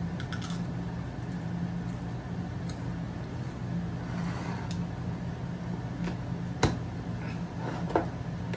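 A Pringles potato crisp crunching as it is chewed, over a steady low hum, with a few light clicks and one sharp tap about two-thirds of the way through as the Pringles can is handled.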